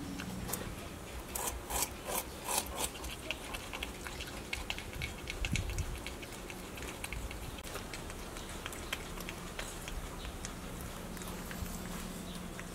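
Crested porcupine chewing and gnawing on raw meat: a run of irregular, quick crunching clicks, busiest in the first half and thinning out later.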